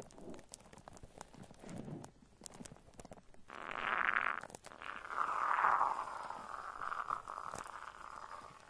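Shaving cream foam squished close to the microphone, with soft squelches and fine crackling pops. About three and a half seconds in, the aerosol shaving cream can hisses out foam in a short burst, then again in a longer, steadier hiss.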